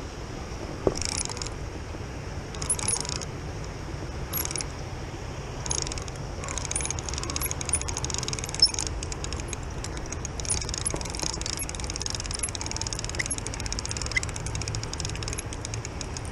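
Fishing reel clicking fast in short bursts, then in longer, almost unbroken runs through the second half, over the steady low rush of the river.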